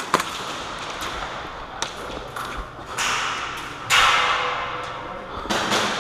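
Airsoft pistol shots: the last sharp crack of a quick string right at the start, then a couple of fainter pops. About three to four seconds in, a louder rushing noise swells and slowly fades.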